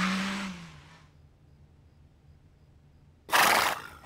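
Car engine accelerating away, its pitch rising and then fading out about a second in. About three seconds in there is a short loud rush of noise lasting half a second.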